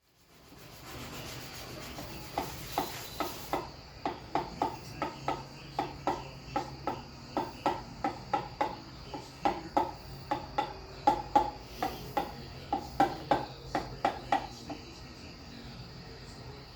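Cloth rubbing back and forth in an engine cylinder bore in repeated strokes, about two a second, wiping out gritty dust left after honing.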